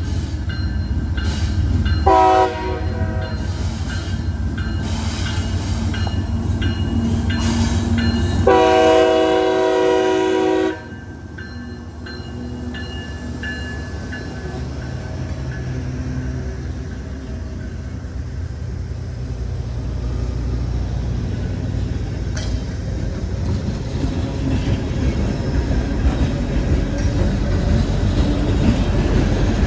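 CSX freight train led by a diesel locomotive sounding its air horn: a short blast about two seconds in, then a long blast of about two seconds near nine seconds in. The engine and rolling cars keep up a low rumble throughout, growing louder toward the end.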